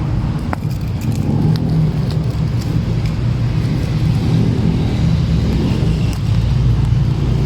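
Steady low rumble of a running motor vehicle, with faint scattered clicks over it.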